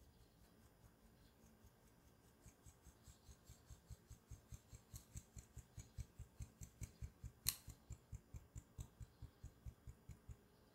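Faint, rhythmic tapping on the rim of a stainless steel mesh sieve to shake flour through into a glass bowl, starting a couple of seconds in at about four or five taps a second, with one sharper tap about halfway through.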